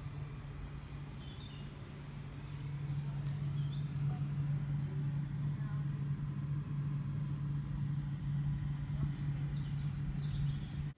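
Steady low engine hum that grows a little louder a couple of seconds in, with small birds chirping over it.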